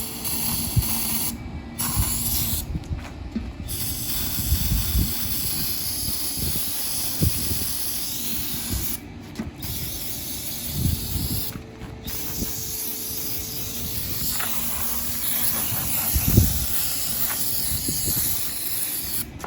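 Aerosol can of brake parts cleaner spraying in long hisses, broken by four short pauses, with a few low knocks of handling underneath. The spray is being laid between the tire bead and the rim to seat the bead by flash ignition.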